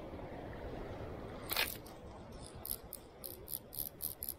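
Fly reel's click pawl ticking in short quick runs as line is reeled in on a hooked fish, over a steady low rush; a single sharp noise about a second and a half in.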